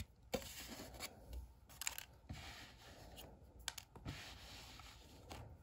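Faint rustling and scraping of a cardboard packaging tray being handled and set down on a carpet, with a few light taps.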